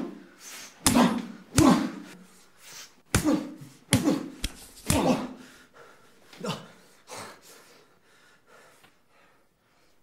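A man's strained, choked gasps and groans, about eight sharp bursts, each trailing off. They come more weakly and fade out about eight seconds in.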